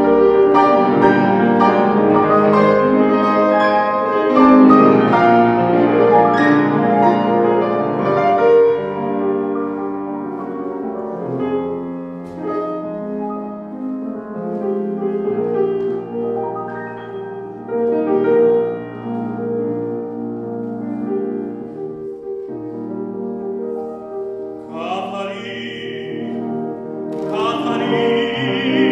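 Piano accompaniment to a Neapolitan song, playing an interlude on its own. Near the end a classical tenor voice comes in singing over it.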